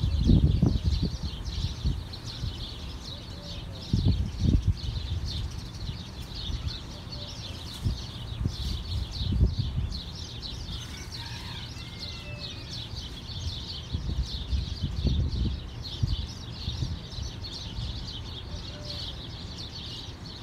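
Small birds chirping steadily, with a few clearer, sweeping bird calls about eleven seconds in. Low rumbling gusts come and go several times, loudest near the start.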